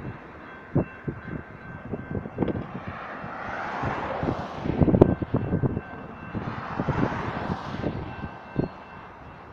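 Grade crossing's General Signals Type 2 electronic bell ringing as the flashing lights and gates activate. It is faint under road vehicles passing with two swells of noise, and irregular thumps of wind on the microphone.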